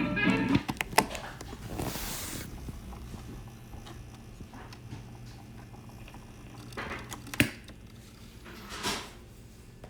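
Music cuts off at the start, leaving a faint steady electrical hum from an old tube radio-phonograph set, with scattered clicks and short knocks of handling, the sharpest about a second in and again near the end.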